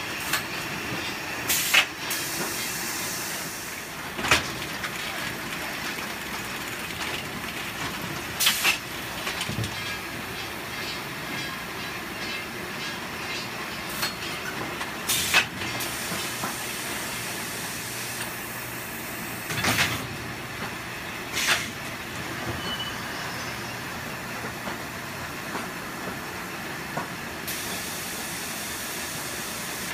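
Conveyor and palletizing machinery running with a steady mechanical din. A sharp clack cuts through every few seconds, and there are several stretches of hiss lasting a second or two.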